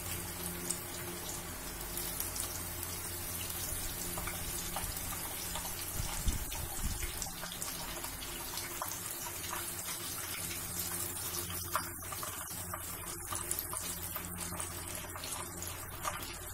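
Cheese-filled katayif pastries deep-frying in hot oil in a pot: a steady sizzle with fine crackling.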